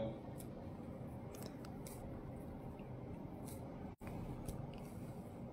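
Faint room noise with a few soft, scattered clicks.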